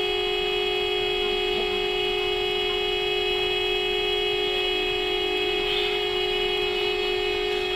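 Steady electrical hum made of several fixed tones, the strongest one low, unchanging in pitch and level, inside a car's cabin.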